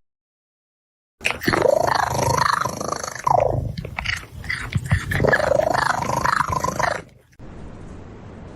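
A cat yowling in a run of drawn-out calls that rise and fall in pitch, starting about a second in and stopping abruptly near the end. A steady low hiss follows.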